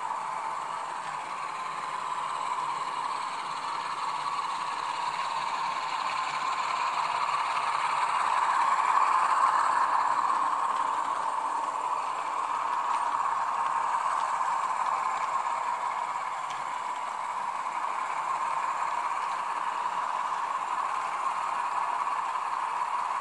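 Sound-equipped HO model of an SNCF CC 65500-series diesel locomotive running with a few freight wagons. Its onboard sound decoder plays the diesel engine sound over the clatter of the model's wheels on the track, swelling about nine seconds in and then easing off.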